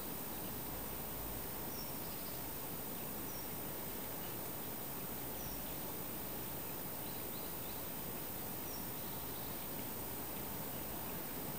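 Outdoor ambience: a steady hiss with a handful of faint, short, high chirps scattered a second or two apart.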